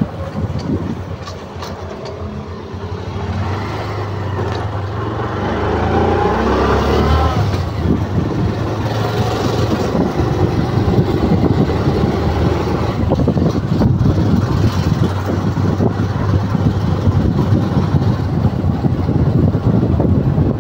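Vehicle engine running while driving along a road, with steady road and wind noise; it grows louder over the first several seconds, then holds steady.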